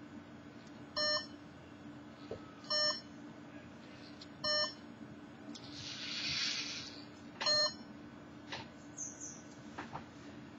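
Short electronic beeps from the LEGO Mindstorms NXT robot's brick, four in all, the first three about two seconds apart and the last after a longer gap. Between the last two beeps comes a brief whir of the arm's motors as it swings up, and there are a few light clicks near the end.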